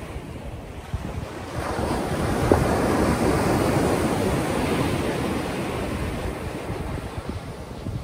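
Ocean surf: a wave breaks and swells into a rushing hiss about a second and a half in, then washes out slowly. Wind buffets the microphone throughout with a low rumble.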